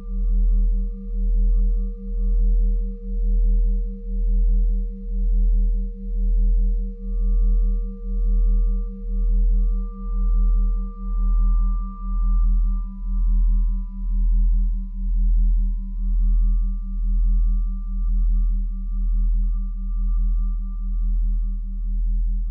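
Ambient drone soundtrack: a deep hum that throbs just under once a second, with a few thin, steady high tones held over it. One high tone fades out about halfway through and another enters shortly after.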